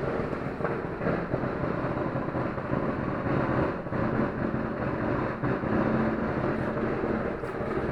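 A continuous rumble of many fireworks going off at once, a dense crackling that never stops.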